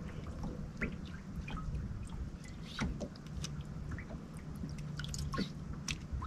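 Small irregular drips and splashes of lake water against the boat hull, over a low steady hum.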